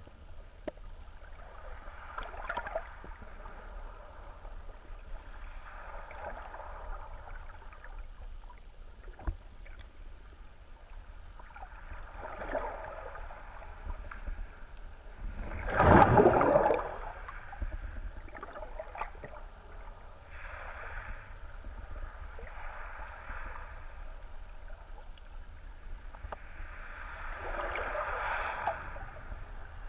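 Muffled underwater ambience picked up by a GoPro Hero 3 Black in its waterproof housing: a constant low rumble with soft swishes of moving water every few seconds, and one louder whoosh about halfway through.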